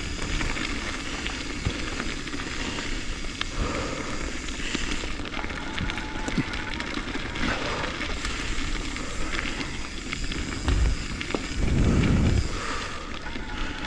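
Mountain bike riding along a gravel trail: steady tyre and ride noise with scattered small knocks and rattles, and a louder low rumble about eleven seconds in.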